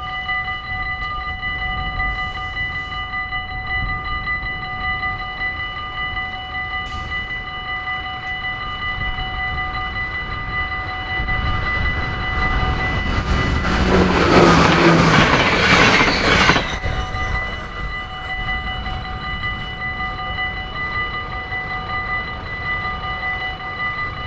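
Dutch level crossing's electronic warning bells ringing steadily. About halfway through, a train passes the crossing: a rushing rumble that builds, is loudest for a couple of seconds, then cuts off suddenly while the bells ring on.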